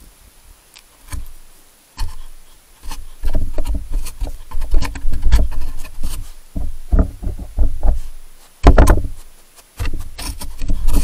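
A European badger nosing and pushing at a trail camera, knocking and rubbing against its housing. It makes a run of irregular heavy knocks, thumps and scraping that starts about a second in and comes thick and fast from about three seconds.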